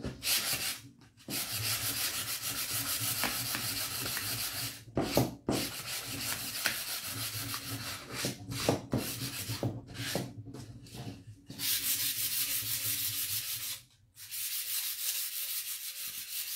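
Sandpaper rubbed by hand along the edge of a white-painted pine box frame: quick back-and-forth rasping strokes, breaking off briefly about a second in and again near the end.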